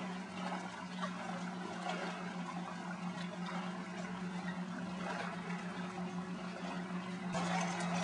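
Steady low motor hum, like a boat engine running at a constant speed, over a wash of water and wind noise that grows louder near the end.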